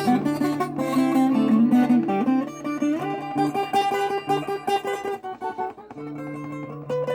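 Viola caipira with jacarandá (Brazilian rosewood) body, fingerpicked: a melody of quick notes over a ringing low bass note. The playing thins out about five seconds in and settles on a held chord before picking up again near the end.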